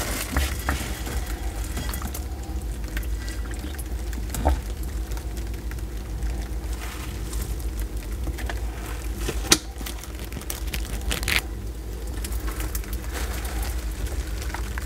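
Sulcata tortoise drinking from a bowl of water, close-miked: soft wet sipping with a few sharp clicks, the loudest about nine and a half seconds in.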